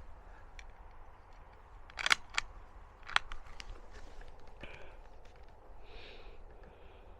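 Sharp metallic clicks and clacks of a small bolt-action rifle's bolt being worked to reload: a quick cluster about two seconds in, another click just after, and a strong clack about a second later, followed by a few lighter ticks and soft handling rustle.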